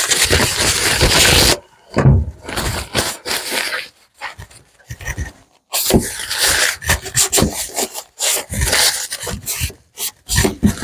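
Paper towel rubbed over glued wooden slats to wipe off glue squeeze-out, in a run of short, irregular scrubbing strokes. A longer paper rustle opens the sound.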